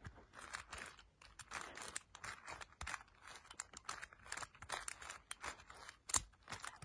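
A 4x4 Rubik's cube being turned two layers at a time: a quick, irregular run of faint plastic clicks and clacks from the turning layers, with a sharper click about six seconds in.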